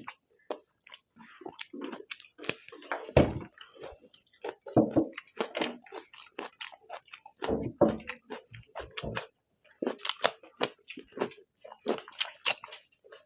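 People chewing mouthfuls of rice and egg curry: wet smacking mouth sounds with irregular crunchy clicks.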